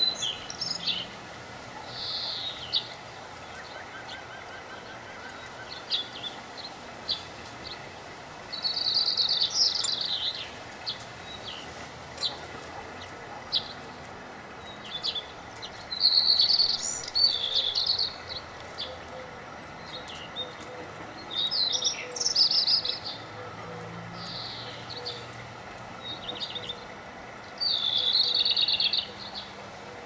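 Songbirds singing, with a short high-pitched song phrase about every six seconds and scattered chips and calls between them, over a steady outdoor background hiss.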